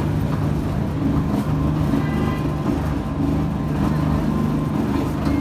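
Busy street din: a steady low mechanical hum with traffic and faint crowd voices, and a short high horn-like tone about two seconds in.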